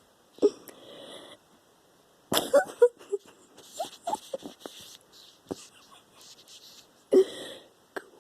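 A woman snoring in her sleep: irregular noisy breaths, the loudest about half a second in, a rattling cluster a little after two seconds, and another loud one near the end.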